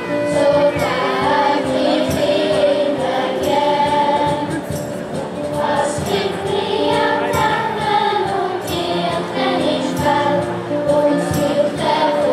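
A children's choir singing together, with long held notes.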